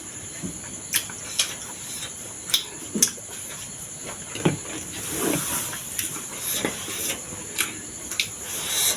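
Close-miked eating sounds: repeated wet mouth clicks and chewing, with longer slurps about five seconds in and again near the end.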